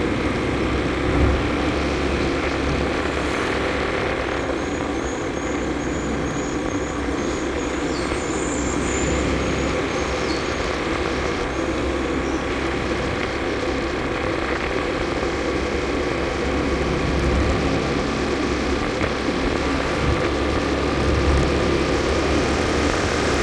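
Honda scooter's single-cylinder four-stroke engine running steadily at low cruising speed, with wind and tyre noise, heard from the rider's seat.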